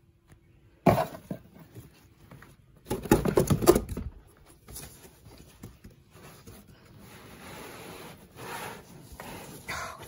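Cardboard shipping box and the packed bag inside being tugged and shifted by hand: a sharp knock about a second in, a burst of scraping and crackling cardboard around three to four seconds in, then softer rustling.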